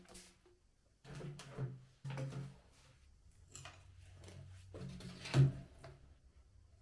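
A string of knocks and short clattering thuds from hard objects being handled, the loudest a little after five seconds in, with a low steady hum coming in about halfway.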